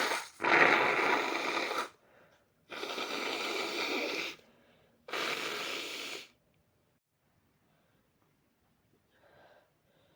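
Aerosol body spray hissing in several bursts of one to two seconds each, each cutting off sharply.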